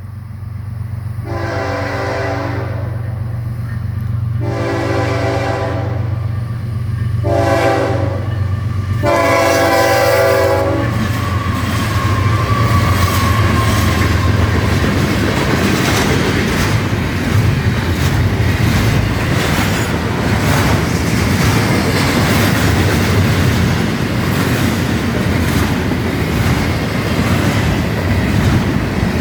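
Florida East Coast Railway diesel locomotive sounding its horn at a grade crossing in the long, long, short, long pattern, over the steady low rumble of its engine. The train's cars then roll past with a steady rattle and clickety-clack of wheels over the rail joints.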